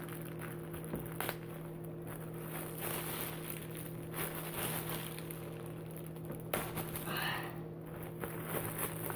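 Plastic packaging crinkling and rustling as a package is opened by hand, with a sharp snap about six and a half seconds in, over a steady low hum.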